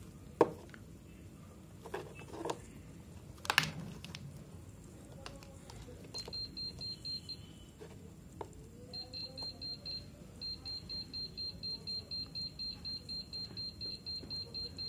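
Bench DC power supply beeping rapidly, a high-pitched tone pulsing about four to five times a second. It starts about six seconds in, breaks off twice, then runs on steadily: the signal that current is flowing into the dead phone battery as it charges. Before it, a few clicks of the crocodile-clip leads being handled.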